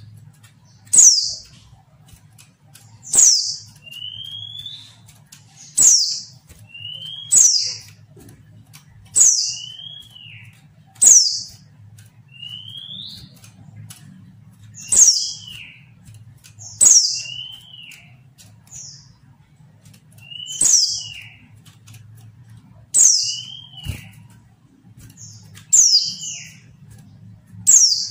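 Female white-eye (pleci) calling over and over: a sharp, high, downward chirp about every two seconds, each followed by a lower curved note. This is the female's call, which stirs male white-eyes to answer and sing.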